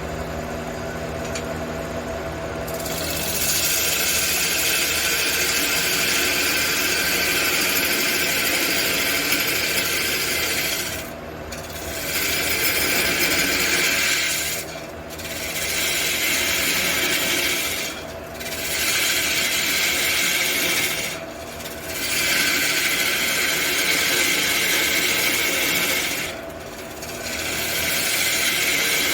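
Wood lathe motor humming as it spins a large aromatic cedar blank, then a tool working the spinning wood with a loud steady hiss, taken in long passes broken by brief pauses about five times.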